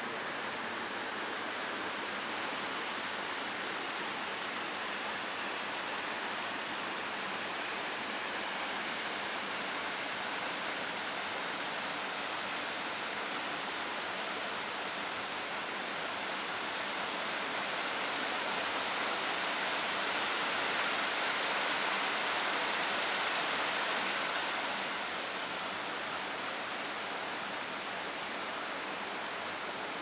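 Steady rush of flowing water, growing a little louder for several seconds past the middle.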